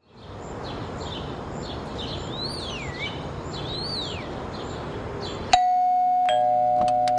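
A steady noisy ambience with repeated high chirps and two swooping whistles. About five and a half seconds in, a loud steady electronic tone cuts in abruptly and holds.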